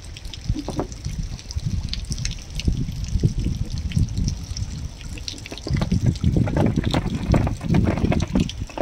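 Water splashing and lapping against the hull of a small boat on a fast-flowing river, in an uneven, continuous slosh with many small irregular slaps.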